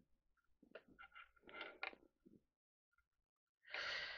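Faint handling sounds from fingers working a small circuit board: light clicks and rustles in the first half, then a moment of near silence, then a louder rustling hiss starting a little before the end.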